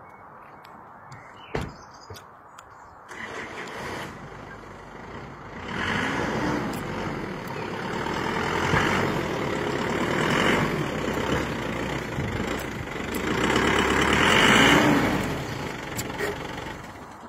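Pickup truck's engine running and being revved, swelling loudest three times (about six, ten and fifteen seconds in) before dropping back near the end.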